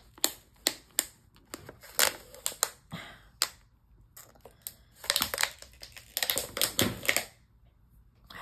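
Small objects clicking and clattering as someone rummages through craft supplies, searching for something. It comes in two flurries of irregular knocks with a quieter pause between.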